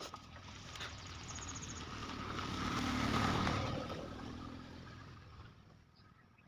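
A motor vehicle passing by, growing louder to a peak about three seconds in and then fading away.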